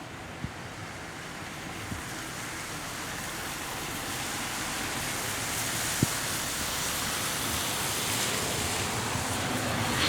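Kawasaki T-4 jet trainer's twin turbofans heard as a rushing noise that grows steadily louder as the jet approaches, the hiss getting stronger toward the end. Three short sharp clicks stand out, about half a second, two seconds and six seconds in.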